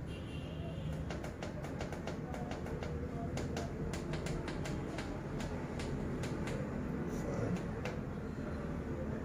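Rapid, irregular clicking of a digital weighing-scale indicator's keypad as its buttons are pressed to enter the 5 kg calibration weight, with a short beep near the start and a low steady hum underneath.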